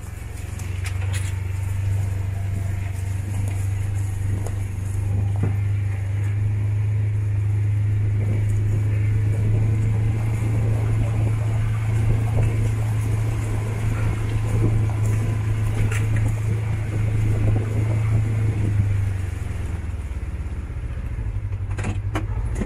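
Side-by-side UTV's engine droning steadily as it drives along a rough woodland trail, easing off at about 19 seconds, with scattered knocks and rattles from bumps along the way.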